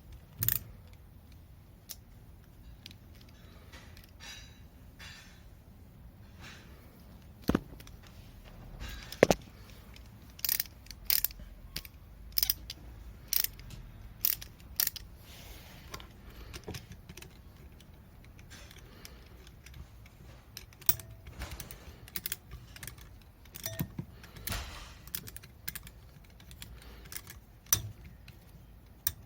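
Hand tools and small metal parts clicking and clinking irregularly against each other during motorcycle engine work, with a few sharper knocks.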